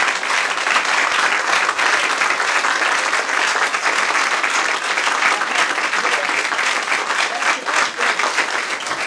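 Crowd applauding steadily: many hands clapping at once.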